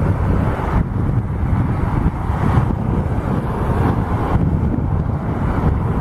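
Jet engines of a twin-engine airliner climbing away after takeoff, a continuous rumble, mixed with gusting wind buffeting the microphone.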